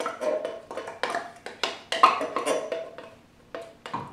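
Spoon scraping and knocking inside an opened metal can of undrained chili beans, emptying it into a saucepan. There are rapid knocks, about four a second, each with a brief metallic ring from the can, for about three seconds. A couple more knocks follow near the end.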